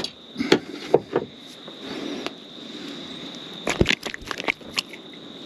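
Sharp clicks and knocks of pliers and hands working a small jig hook out of a bream's lip, with a quick cluster of knocks about four seconds in.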